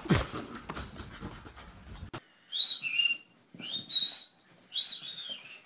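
A dog gives three high-pitched whines that glide up and down, each under a second long, starting about two and a half seconds in. Just after the start there is a single thump.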